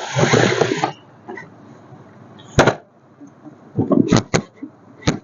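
Handling noise: a short rustling burst, then a sharp click, a few knocks close together about four seconds in, and another click near the end.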